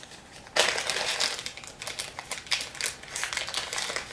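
A small clear plastic parts bag crinkling and crackling in the hands, with a dense run of sharp crackles starting about half a second in, as a new reel bearing is taken out of it.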